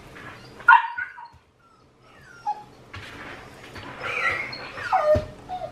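A dog whining: a sharp high whimper just under a second in, then a longer whine that slides down in pitch near the end. The dog is worked up by the smell of raw meat.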